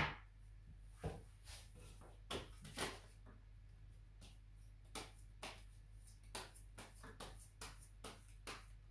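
A deck of tarot cards being shuffled by hand: a faint, irregular run of short card slaps and flicks, a few each second.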